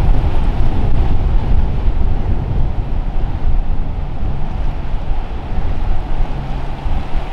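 Strong wind buffeting the microphone over breaking surf, with a motor yacht running hard through the waves.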